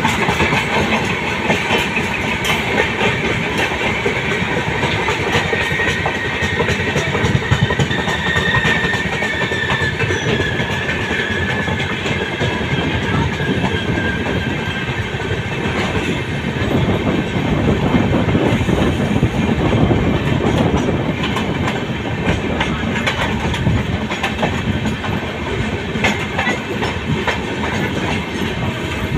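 Express passenger trains running at speed, heard from an open coach door: a steady rumble of steel wheels on the rails with clickety-clack over the rail joints. A faint high whine slowly falls in pitch during the first half.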